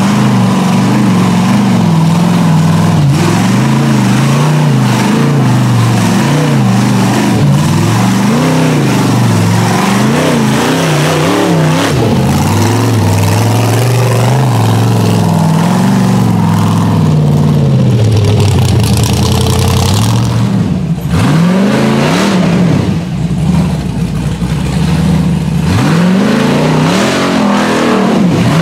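Tube-chassis rock buggy engines revving up and down under load while climbing rocky ledges, the throttle worked on and off constantly. There are a few sharp, quick rises in revs about two-thirds of the way through and near the end.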